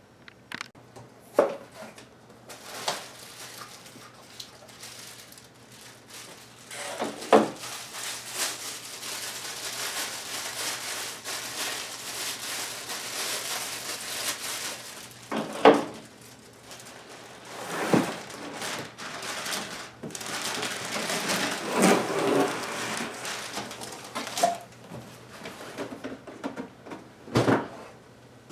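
Cardboard box and packing material rustling and scraping during unboxing, with about six sharp knocks as items are set down on a table.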